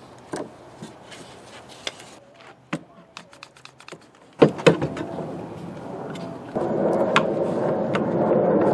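Clamps being set on a glued wooden closet rod: scattered clicks and knocks of clamp and wood. Then a sharp knock about four and a half seconds in, and a steady noise that grows louder near the end.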